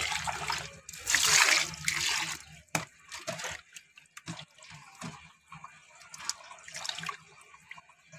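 Raw goat offal being washed by hand in a steel bowl of water: splashing and sloshing, loudest in the first two seconds, then scattered drips and small wet sounds.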